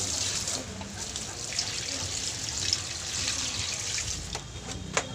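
Water poured from a plastic dipper into a metal pot, splashing over the leaf-wrapped rice cakes inside.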